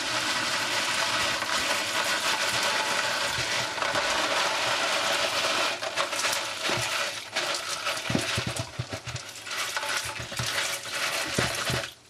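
Coarse dishwasher salt pouring from a cardboard box into a dishwasher's water-filled salt reservoir, refilling its water softener. A steady hiss of granules for about six seconds, then shorter uneven pours with scattered ticks of granules landing.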